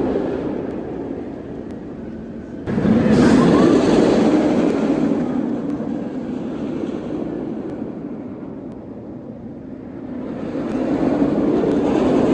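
Steel roller coaster train rumbling along its track. The noise swells suddenly about three seconds in, fades away, then builds again near the end as the train comes back around.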